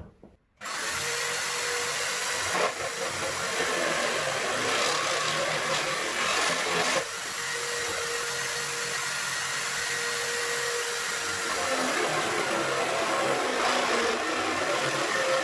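Electric drill running a hole saw into wood, a steady motor whine with cutting noise that starts about half a second in and dips briefly about seven seconds in.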